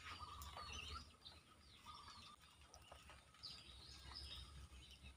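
Near silence: faint outdoor ambience with a low steady rumble and a few faint, scattered bird chirps.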